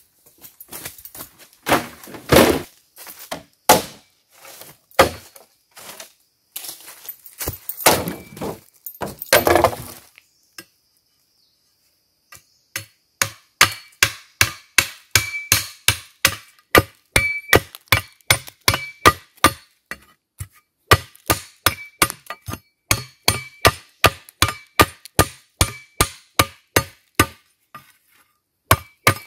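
Bamboo poles knocking and clattering as a bundle is set down. After a short pause, a folding shovel's blade chops into the lower end of a bamboo pole in a steady run of sharp strikes, two to three a second, some with a brief metallic ring.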